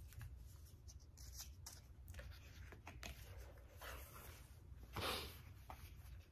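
Soft rustling and brushing of a jewelry box being handled: lifted, turned over and set down, with a louder brush about five seconds in, over a low steady hum.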